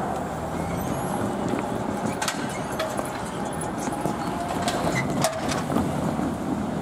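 Road traffic: cars driving across a railroad grade crossing, a steady vehicle sound with a few sharp clicks partway through.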